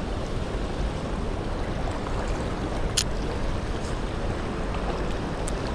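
Fast-flowing river rushing steadily, with a single sharp click about three seconds in.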